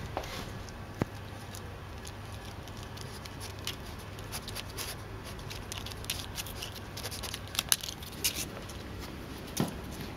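European badger foraging and feeding close to the microphone: irregular small clicks, crunches and snuffles, busiest in the second half, over a faint steady low hum.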